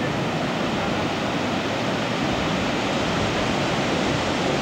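Ocean surf breaking in rows along the shore, a steady even wash of waves.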